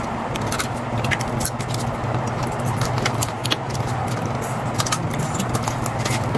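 Cooked crab shells cracking and clicking as they are broken apart by hand, a rapid scatter of small sharp snaps, over a steady low hum.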